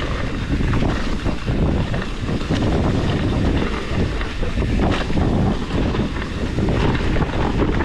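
Wind buffeting the microphone while a mountain bike rides fast down a dirt trail, with a steady low rumble and many short knocks and rattles from the rough ground.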